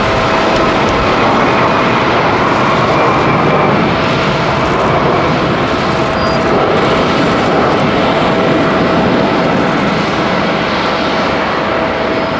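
Airbus A340-300's four CFM56-5C turbofan engines at takeoff thrust as the jet climbs away just after rotation: a loud, steady roar with a faint steady whine in it.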